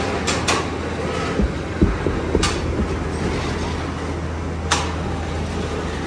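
Factory machinery running steadily with a low hum, with sharp clicks and knocks about six times, spread through the stretch.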